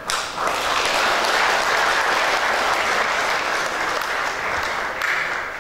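Audience applauding, starting suddenly and easing off near the end.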